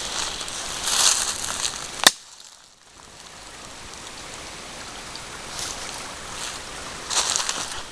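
Footsteps rustling through dry leaf litter on a forest floor, a few steps about a second in and again near the end, with a sharp click about two seconds in and a steady outdoor hiss in between.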